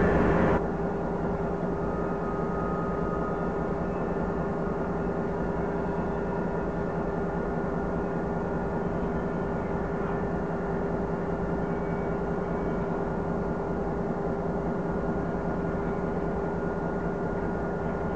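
Diesel locomotive engines running with a steady drone that holds the same pitch throughout. For the first half-second a louder passing train rumble is heard, then it drops off suddenly.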